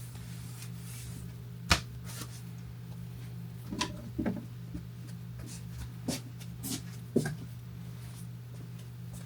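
A handful of short, sharp clicks and knocks from small objects being handled and set down, the loudest a little under 2 seconds in and again near 7 seconds, over a steady low hum.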